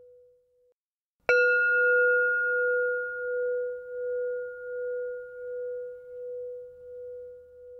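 Brass singing bowl struck once with a wooden mallet about a second in, ringing with a pulsing, wavering hum and higher overtones that slowly fade. Just before the strike, the tail of an earlier ring dies away.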